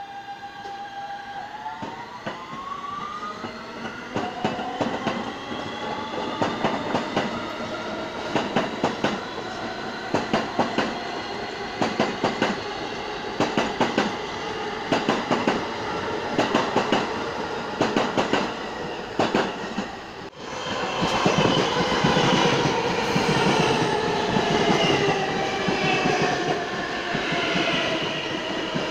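New York City subway trains. One pulls away on a far track with a rising motor whine and its wheels clacking in regular pairs over the rail joints. About two-thirds of the way in, a second train comes in alongside, louder, with a falling motor whine as it slows.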